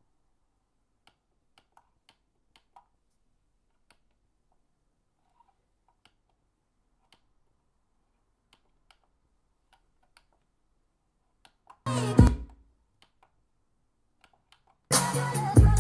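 Music played through a Fisher CA-345 stereo amplifier and speakers. It stops, and a long near-silent gap with faint scattered clicks follows. A brief snatch of music comes about twelve seconds in, and music starts again near the end.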